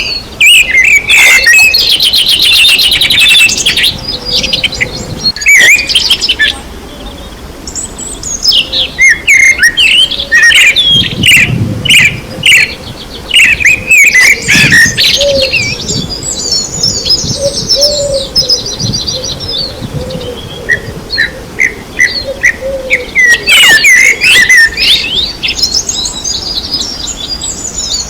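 Several birds chirping and singing at once: quick trills, whistled glides and short repeated chirps overlapping one another.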